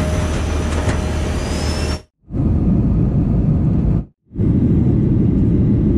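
Jet airliner cabin noise, a steady engine and airflow rumble heard in three short clips cut together, with brief silences at the cuts near 2 and 4 seconds. The first clip is brighter, with a steady hum and a thin rising whine near its end.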